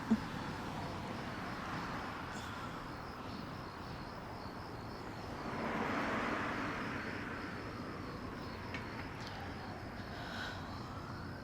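Road traffic going by steadily, one vehicle swelling past about halfway through, with insects chirping in a steady pulse.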